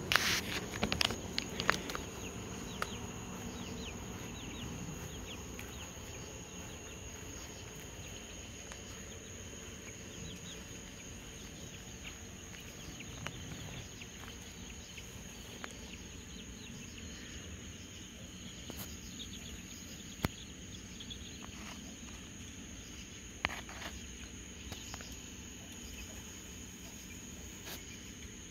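Evening insect chorus, crickets trilling in a steady high-pitched drone. A few sharp knocks come in the first couple of seconds, and two more clicks later on.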